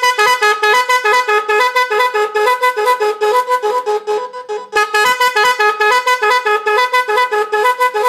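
Magic 10 multi-tone electric car horn, its 410 Hz and 510 Hz horns sounding a melody-like pattern that switches between the two pitches several times a second. There is a short break about four and a half seconds in.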